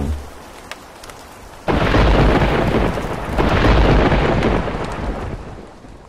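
Thunderstorm sound effect: rain hissing, then a sudden loud thunderclap a little under two seconds in and a second rolling peal about three and a half seconds in, dying away toward the end.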